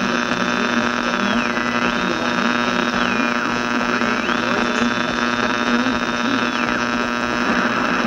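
Steady mains hum and buzz with hiss from a worn old recording. Over it a thin high whistle holds one pitch, slides down to a lower one and back up, several times.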